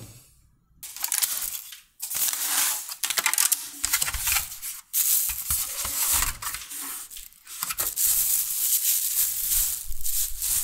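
Takeaway food parcels being unwrapped: irregular crinkling and rustling of the wrapping, starting about a second in.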